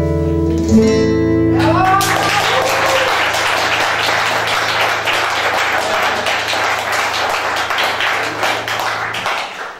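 The final chord of an acoustic guitar rings out at the end of a song, then an audience applauds, with a few cheers near the start of the clapping. The applause dies down near the end.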